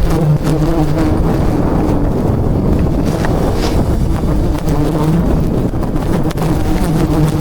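Bees buzzing close around the microphone in a steady, wavering drone, over a low rumble of wind on the microphone.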